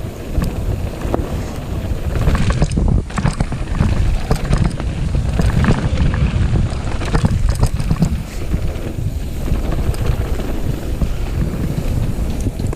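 Wind buffeting the microphone over the noise of mountain-bike tyres on a dirt trail during a fast descent, with frequent sharp rattles and knocks from the bike over rough ground.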